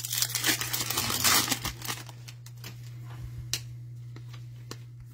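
Foil trading-card pack wrapper crinkling and tearing as it is ripped open, dense for about the first two seconds, then a few scattered light clicks. A steady low hum runs underneath.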